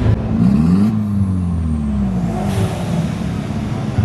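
A car engine revving once: the pitch climbs quickly, then falls away slowly as the throttle is let off.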